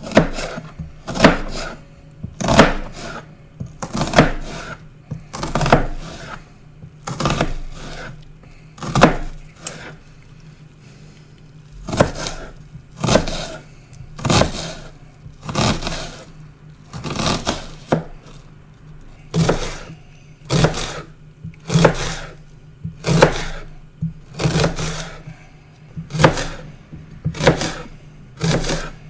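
Kitchen knife chopping an onion on a cutting board: sharp, even strokes, many in quick pairs, at a steady unhurried pace, with a pause of about two seconds near the middle.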